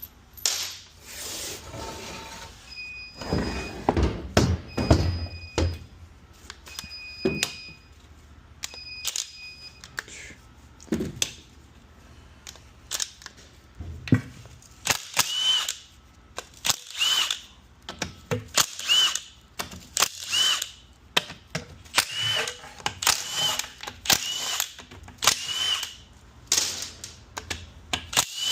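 Metal transmission parts and tools being handled on a workbench during a teardown: scattered knocks and clanks, then a run of short tool bursts about once a second in the second half.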